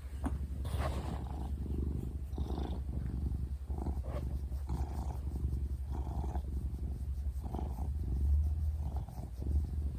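A cat purring close to the microphone: a steady low fluttering rumble that swells and eases about once a second.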